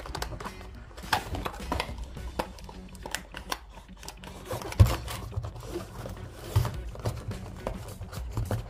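Cardboard phone-box packaging being handled: an accessory box is fitted shut and pressed down into its tray, giving soft taps, scrapes and knocks, the sharpest a little before five seconds in, over quiet background music.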